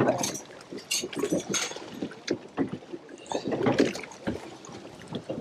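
Water slapping against the side of a boat, broken by irregular short knocks.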